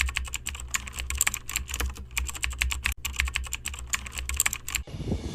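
Rapid, irregular clicking, like keys being typed, over a low hum. It starts abruptly and stops abruptly near the end.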